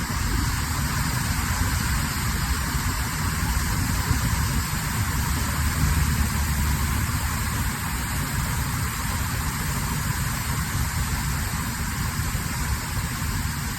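Dam overflow floodwater rushing in a steady, unbroken stream of noise, with a deep rumble underneath.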